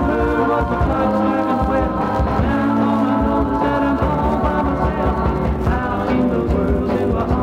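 Garage soul record playing: a full band song.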